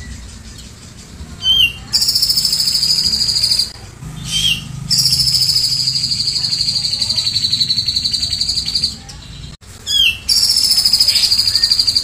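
Caged cucak jenggot (grey-cheeked bulbul) singing three long, fast-pulsing high trills, each opened by a short rising note and sagging a little in pitch. The trill is the cililin 'shot' the bird has taken into its song as mimicry.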